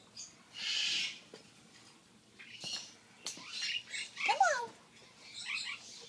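African grey parrot making a short hiss, then a string of chirps and whistles, including quick falling whistled glides about four seconds in.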